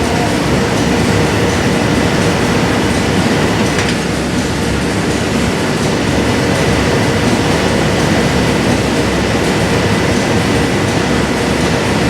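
Steady, loud industrial machinery noise, a continuous rumbling din with a faint steady hum and a faint high whine running through it, typical of a running heat-treatment furnace line.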